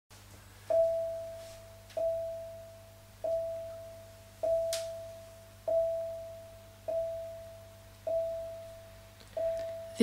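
Marimba struck with yarn mallets, playing one note eight times at a slow, even pulse, each stroke ringing and fading before the next.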